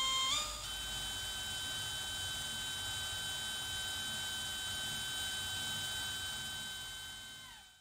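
Cordless drill running at high speed, spinning the core wires of a fused Clapton coil while the outer wire is wrapped onto them. Its whine steps up twice in the first second as the trigger is squeezed harder, holds steady, then winds down near the end as the drill is let off.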